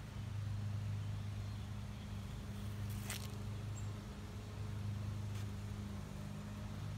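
A steady low mechanical hum, like a motor running, with a short scratchy sound about three seconds in and a faint tick later.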